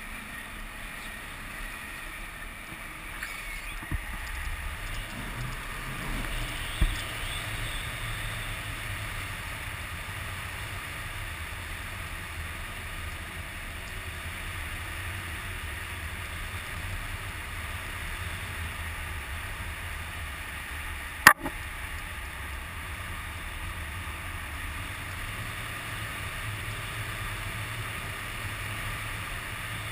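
Steady rush of wind over a camera microphone in flight under a tandem paraglider, with a low buffeting rumble. A single sharp click about two-thirds of the way through is the loudest sound.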